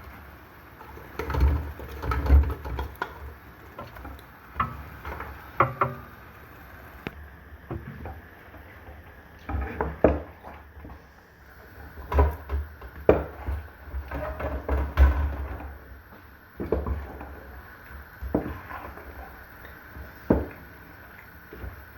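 Irregular knocks, thuds and clatter of kitchen utensils against a cooking pot while meat is added to a stew.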